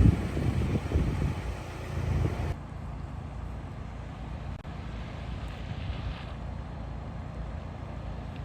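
A vehicle engine running with a loud, low rumble, which cuts off abruptly about two and a half seconds in. After that comes a steady, quieter low rumble of wind on the microphone.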